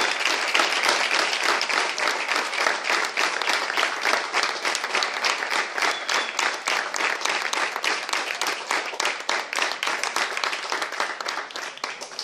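An audience applauding, many hands clapping steadily and tailing off slightly toward the end.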